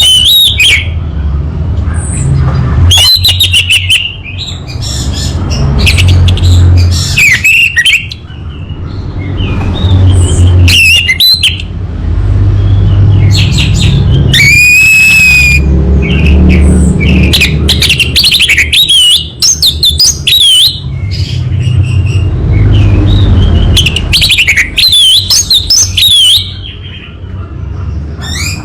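Orange-headed thrush singing in bursts of rapid, varied whistles and chirps with short pauses, including one long drawn-out whistle about halfway through. A steady low rumble runs under the song.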